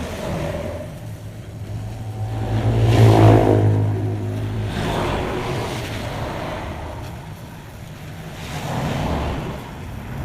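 Yamaha RX-King two-stroke single-cylinder engine running through a knock-off exhaust being reworked for a crisp, growling note. It is revved hard about three seconds in, settles back, and is revved again, less strongly, near the end.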